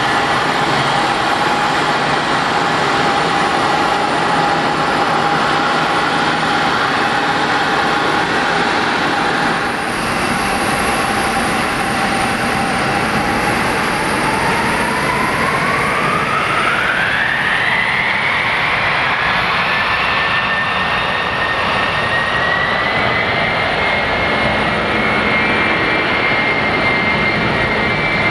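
Boeing 767-300 airliner's jet engines running loud, their whine steady at first, then climbing steeply about halfway through and holding high as the engines spool up.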